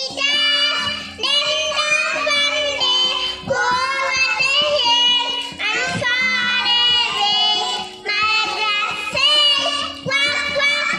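Young children singing a song together, one girl leading into a microphone, in phrases of about a second each. Steady low held notes change pitch underneath the voices.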